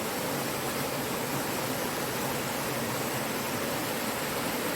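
Mountain valley stream flowing: a steady rush of water that does not change.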